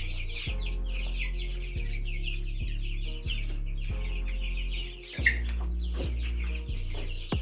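A brooder full of two-week-old chicks peeping constantly, many quick falling peeps overlapping, over a steady low hum.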